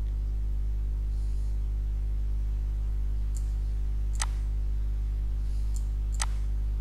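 Steady electrical hum under a few computer-mouse clicks. The two sharpest clicks come about four and six seconds in.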